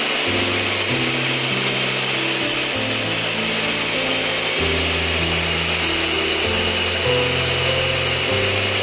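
Table saw running steadily, a loud even motor-and-blade noise that starts just before and holds without change, with background music playing along.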